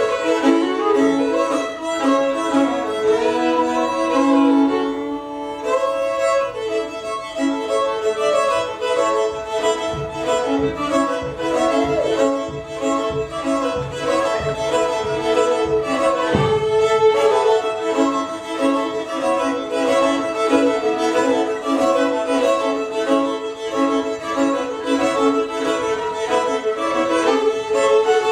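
Live string-band fiddle music: bowed fiddle melody over steady drone notes, with a regular rhythmic beat joining about ten seconds in.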